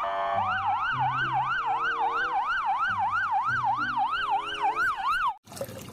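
Electronic police siren wailing rapidly up and down, about three sweeps a second, over a low stepped electronic tune. It cuts off suddenly near the end.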